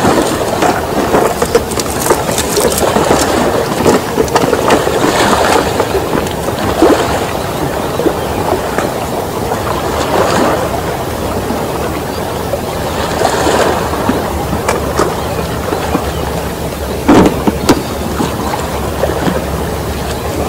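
Small sea waves washing and sloshing against shore rocks, swelling and falling every few seconds, with a couple of sharp knocks late on.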